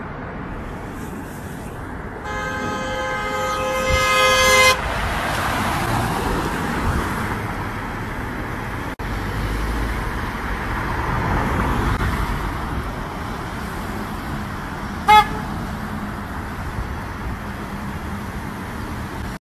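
A car horn held for about two and a half seconds, then traffic noise swelling and fading as vehicles drive through the intersection, with one short horn toot near the end.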